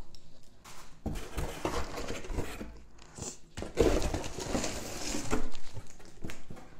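Cardboard shipping box and its packing being handled: flaps and packing material rustling and crinkling, with a few light knocks, loudest about four and five seconds in.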